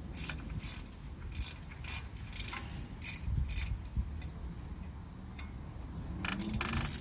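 Hand ratchet wrench clicking in short strokes, with a faster run of clicks near the end.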